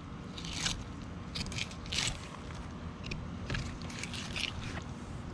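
Fillet knife slicing and scraping through a kingfish as the fillet is cut free from the frame, in a series of short, irregular strokes.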